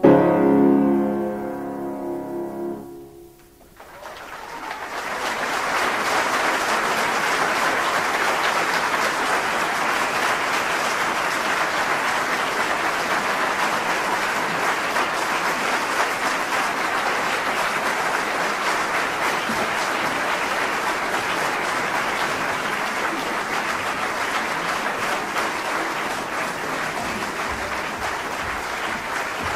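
A piano's closing chord is struck and rings for about three seconds before dying away. After a short silence an audience breaks into steady applause that lasts the rest of the time.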